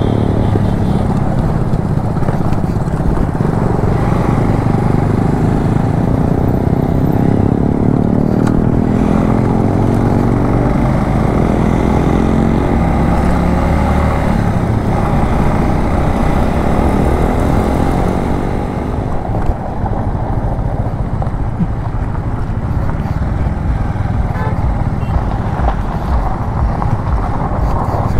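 A Bajaj Avenger Cruise 220's 220 cc single-cylinder engine running on the move over a steady rushing noise. Its pitch rises and falls as the rider speeds up and eases off, most clearly in the middle stretch.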